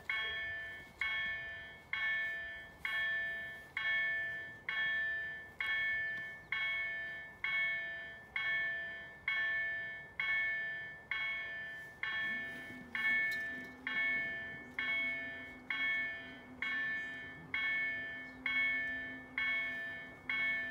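Level-crossing warning bell (EDG-4) striking about once a second, each stroke ringing out and fading, warning that a train is coming and the crossing is closing. About twelve seconds in, a low steady hum joins as the EGG-3 gate drives lower the barriers.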